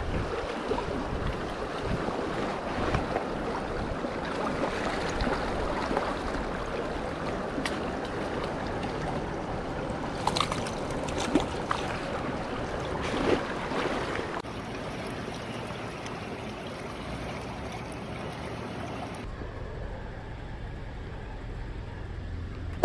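A mountain stream flowing: a steady rush of water, with a few sharp clicks in the middle. About two-thirds through, the sound abruptly turns quieter and duller.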